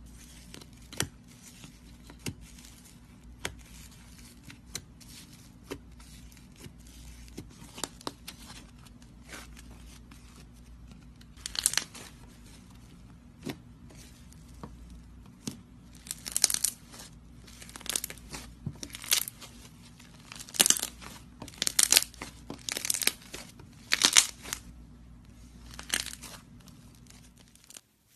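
Slime being squeezed and kneaded by hand, giving small scattered pops and clicks, then from about twelve seconds a run of loud crackling, crinkling bursts, roughly one a second, as it is pressed and pulled. A faint steady hum lies under it.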